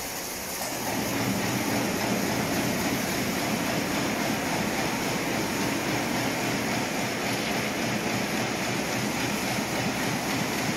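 Double-line side-welding and bottom-sealing plastic bag machine running, a steady, even mechanical noise that grows slightly louder about a second in.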